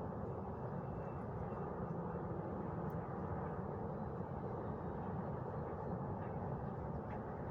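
Steady low rushing outdoor ambience of wind, blended with the hum of distant traffic.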